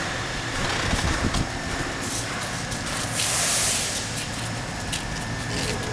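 Steady hum of machinery running, with a few knocks about a second in and a short loud hiss, like a blast of air, about three seconds in.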